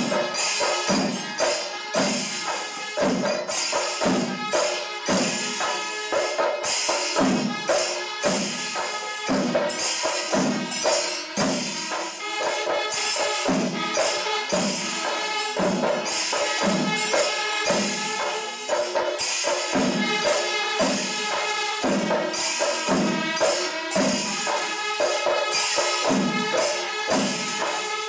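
Kerala panchari melam ensemble playing: chenda drums beating a steady, even rhythm of low strokes about every two-thirds of a second, ilathalam cymbals clashing in a continuous bright shimmer on top, and steady held wind notes over them.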